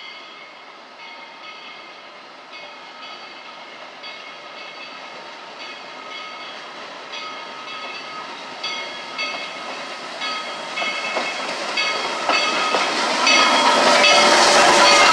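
Skookum No. 7 steam locomotive approaching and passing close, growing steadily louder until a noisy rush swells over the last second or so. A ringing tone repeats about twice a second throughout.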